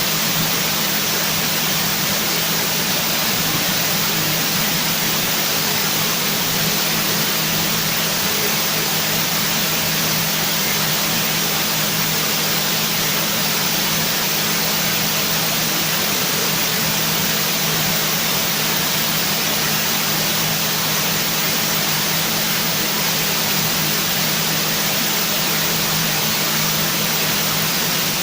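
Steady, even hiss like static noise, unchanging throughout, with a low hum underneath.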